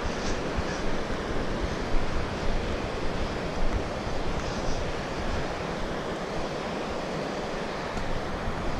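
Wind buffeting the camera's microphone: a steady rushing noise with a gusty, fluctuating low rumble.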